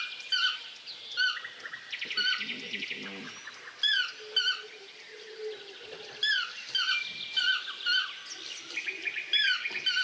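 Tropical forest birds calling together: short whistled notes that rise and fall, repeated about every half second, over fast rattling trills.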